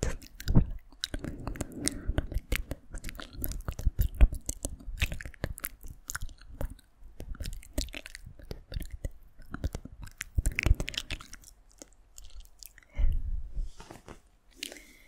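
Close-miked ASMR mouth sounds: a dense stream of wet clicks and smacks, coming in runs with brief pauses between them.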